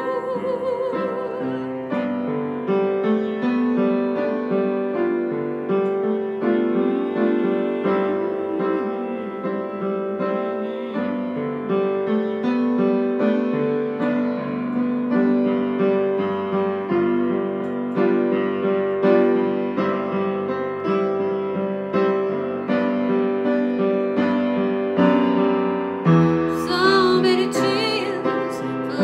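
Piano or electric keyboard playing a slow instrumental passage of chords and melody. A held, wavering sung note fades out at the start, and a woman's singing comes back in near the end.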